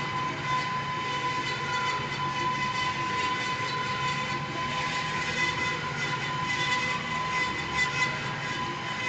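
Industrial metal-cutting bandsaw running a bi-metal blade through 4-inch round steel: a steady machine whine with a high ringing tone over a constant grinding noise.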